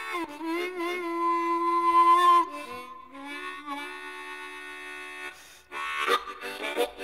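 Blues harmonica playing held, bending chords in imitation of a train whistle. About six seconds in it breaks into a fast rhythmic chugging in imitation of a train's running.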